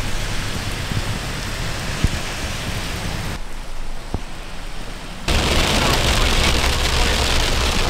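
Heavy rain falling steadily. About five seconds in, it jumps louder into heavy rain hitting a car's windshield and body, heard from inside the cabin, with the car's low steady hum underneath.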